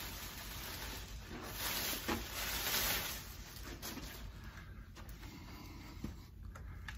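Plastic packing wrap rustling and crinkling, loudest about two to three seconds in, with a few light clicks and knocks of handling.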